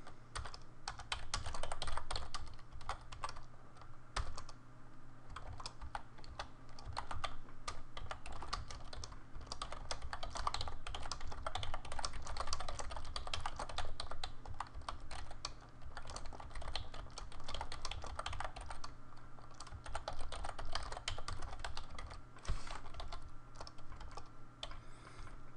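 Rapid typing on a computer keyboard: a dense, irregular run of keystroke clicks with short pauses, over a faint steady low hum.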